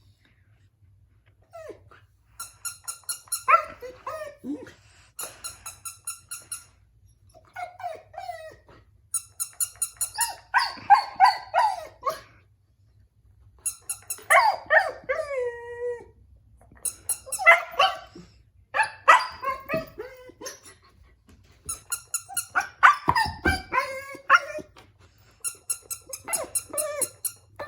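Husky puppy crying: bouts of whines, yips and howl-like cries, several sliding down in pitch, with brief pauses between bouts.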